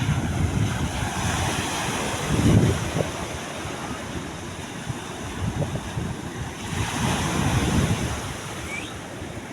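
Wind buffeting the microphone over the noise of the sea washing, with gusts swelling about two seconds in and again near the end.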